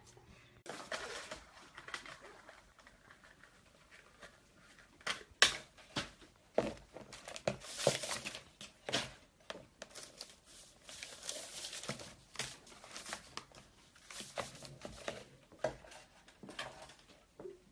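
Irregular crinkling and rustling with many sharp clicks and taps, starting about a second in and busiest through the middle.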